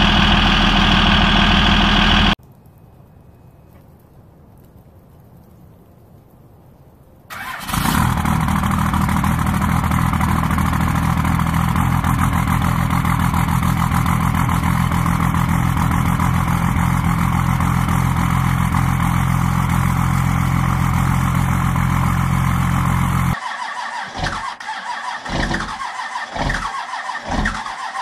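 Cummins diesel pickup engines in a cold-start sequence. One engine idles loudly and cuts off, and after a few quiet seconds another catches with a sudden rise and runs steadily. Near the end a third engine's starter cranks it slowly and evenly, about two turns a second, without yet catching.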